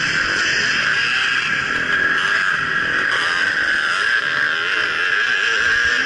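Motocross dirt bike engine running under throttle on a dirt track, its pitch rising and falling as the rider works the throttle. Heard close up through an action camera, with a strong steady hiss over it.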